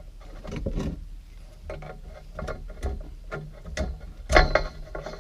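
Coax cable and small metal connectors and tools being handled: a run of irregular clicks and clacks, with a louder knock about four seconds in.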